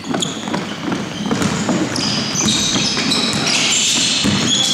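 Basketball shoes squeaking on a hardwood court, the high short squeaks coming thick from about two seconds in, with a ball bouncing.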